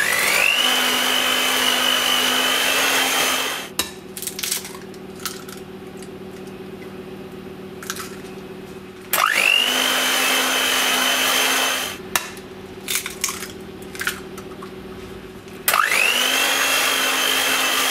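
Electric hand mixer with whisk beaters beating eggs into creamed butter and sugar, switched on in three short runs, each starting with a rising whine as the motor spins up. A few light clicks fall in the gaps between runs.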